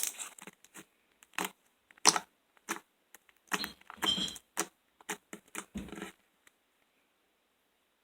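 Homemade borax slime squeezed and pulled by hand, giving an irregular string of short sticky clicks and pops that stops about six seconds in.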